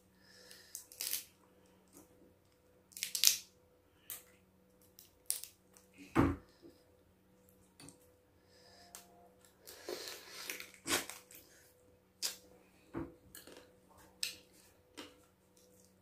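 Cooked crab being eaten by hand: shell cracking and peeling, meat pulled apart, chewing and lip-smacking, in short scattered bursts. A dull knock about six seconds in.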